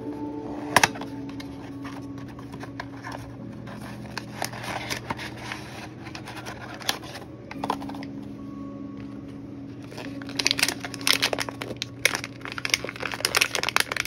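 A cardboard blind box being handled and opened, with a sharp click about a second in and scattered small clicks and rustles. Over the last few seconds a foil blind-box bag crinkles loudly in the hands.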